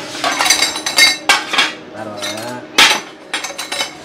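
Stainless steel exhaust pipe bends and metal offcuts clinking and clanking against each other as they are picked through and moved in a pile by hand, a string of ringing metal knocks with a sharp clank about three seconds in.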